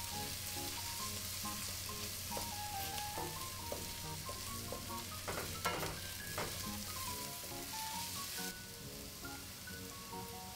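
Chopped onion and garlic sizzling in hot oil in a stainless steel pot as they are sautéed until the onion softens, stirred with a wooden spoon that scrapes and knocks against the pot a few times around the middle. The sizzle grows quieter after about eight seconds, with soft background music underneath.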